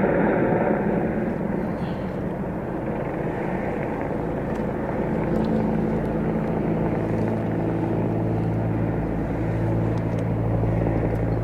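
Steady engine drone over a rushing hiss, with a low steady hum that comes in about five seconds in and grows stronger.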